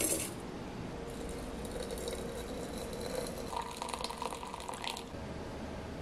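A short clink at the start, then hot water poured from a kettle into an IKEA RIKLIG glass teapot through its steel mesh infuser. The pour runs about four seconds and stops about a second before the end.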